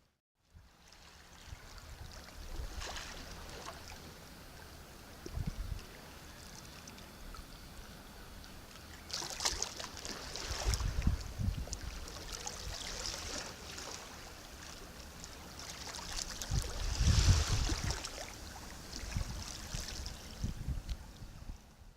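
Sea waves washing in and breaking, with surges of rushing water every six seconds or so; the loudest wave comes about three-quarters of the way through.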